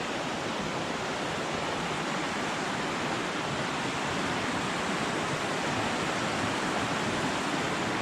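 Creek water rushing steadily, a constant even hiss with no change.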